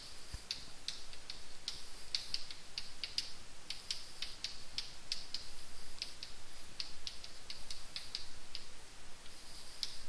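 Chalk writing on a blackboard: quick, irregular taps and short scratches, several a second, as letters are formed.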